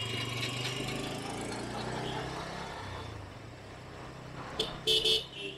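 Bajaj Pulsar N160 single-cylinder motorcycle engine running steadily while riding in traffic, with wind and road noise. Near the end, two short loud horn beeps.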